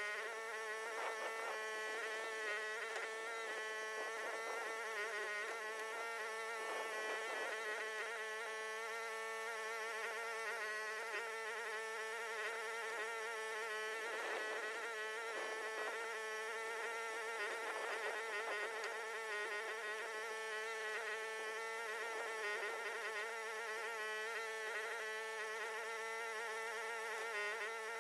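Huayee HY14C mini excavator engine running steadily at working speed, a high buzzing hum whose pitch wavers slightly as the machine works.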